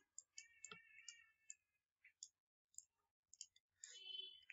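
Near silence with faint, scattered clicks.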